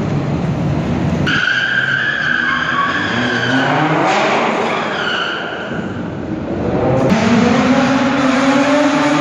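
Cars drifting and doing donuts on concrete: tires squealing in high, wavering tones and engines revving up and down. The sound changes abruptly between the two partway through.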